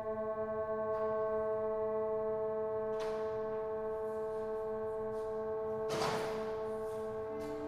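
Background music: a held chord of ringing, bell-like tones, with a soft rush of noise swelling in about three seconds in and again about six seconds in.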